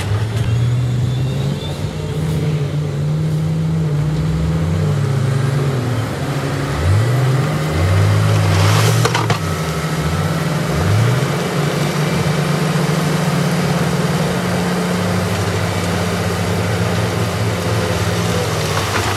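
Heavy diesel engines of a dump truck and wheel loader running, the truck's engine revving up and down several times as it raises its bed to tip a load of broken rock. A short burst of noise about nine seconds in.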